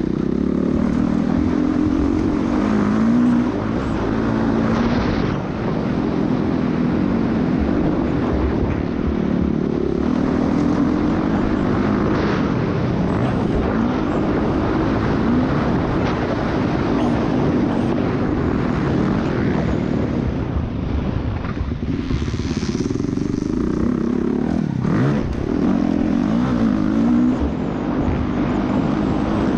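Motocross bike engine heard from on board while riding, revving up and backing off again and again as the rider accelerates and slows, with wind rushing over the microphone.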